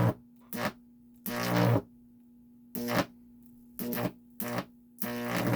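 High-voltage arcs drawn from stacked microwave oven transformers, about six or seven short buzzing zaps at uneven intervals, the longest about a second and a half in. Between the zaps the transformers hum steadily under power.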